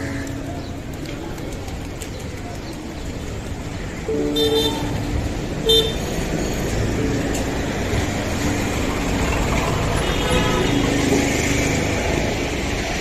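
Street traffic noise with vehicle horns honking: a horn sounds a little after four seconds in, a short toot follows near six seconds, and another horn sounds around ten seconds in.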